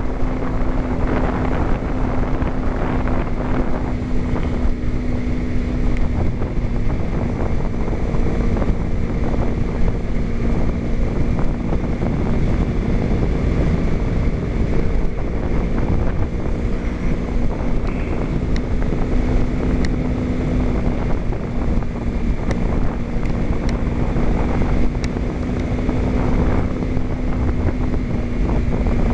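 Wind buffeting a helmet-mounted camera's microphone while riding a Kawasaki Ninja 250, with the bike's parallel-twin engine holding a steady hum at an unchanging cruising pitch.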